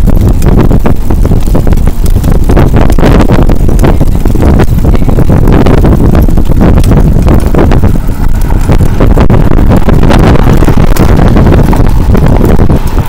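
Loud, steady wind buffeting on the microphone mixed with the rumble of a towed bicycle trailer rolling along pavement, with many small rattles and knocks from the trailer frame.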